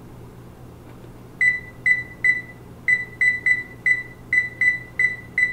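Electronic control panel of a gas range beeping once for each button press as the cooking timer is set: about eleven short, identical high beeps at an uneven tapping pace. The beeps begin about a second and a half in.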